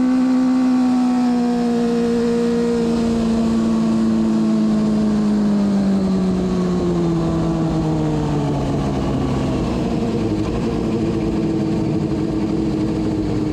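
Onboard sound of a carburettored race motorcycle's engine with its revs falling steadily as the bike slows, over constant wind rush.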